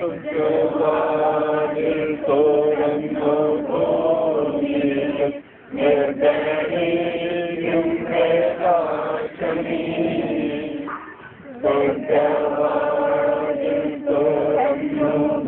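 A group of voices chanting a prayer together in long held phrases, with short breaks about five and a half and eleven seconds in.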